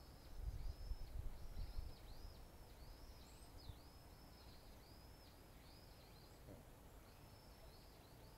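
Faint run of high chirping notes from a small bird, repeated two or three times a second with a short pause near the end. A low rumble sits underneath in the first two seconds.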